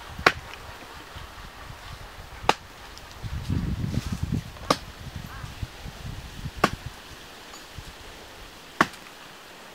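Wood being chopped with a blade: five sharp chops, evenly spaced about two seconds apart, with a spell of rustling between the second and fourth.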